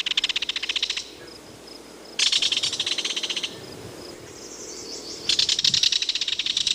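Insect chirping in three bouts of rapid, buzzy pulses, each lasting a second or two, with quieter gaps between them.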